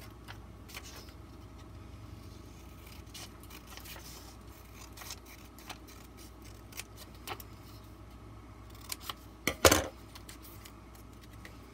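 Craft scissors cutting a strip of colored paper: a run of faint snips and paper handling. About three-quarters of the way in there is a louder sharp clack as the scissors are set down on the countertop.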